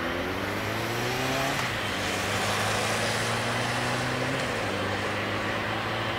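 Twin GE90-115B turbofan engines of a Boeing 777-300ER running at taxi power: a steady jet rumble and hiss with humming tones, some rising in pitch during the first second and a half.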